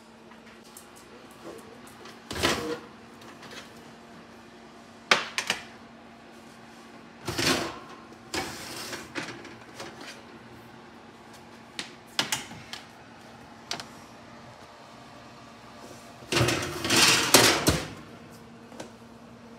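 Metal baking sheets and an oven rack being handled: several separate knocks and short scraping clanks, then a longer, louder rattling clatter near the end, over a steady low hum.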